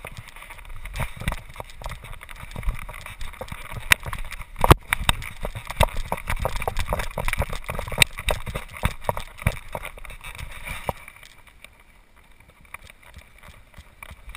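Knocks and rubbing from a GoPro camera strapped to a dog's back, jostled as the dog moves, with fur brushing against it: many quick, irregular clicks and thumps that die down a few seconds before the end.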